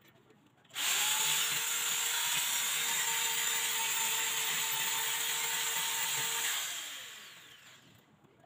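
Corded electric drill running at a steady speed for about six seconds, boring into the wall, then spinning down as the trigger is let go.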